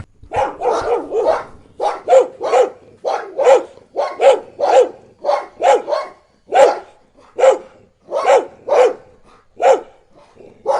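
An angry dog barking over and over: short, sharp barks that come in quick runs of two or three, about twenty in all.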